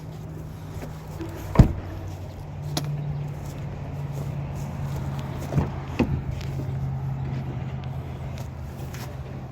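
A few sharp clicks from a car seat belt and its buckle being tried, the loudest about one and a half seconds in, over the steady hum of an idling vehicle engine that steps a little lower in pitch before three seconds in.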